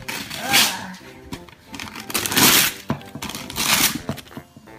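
Wrapping paper being torn off a gift box in three quick rips, the longest and loudest about halfway through.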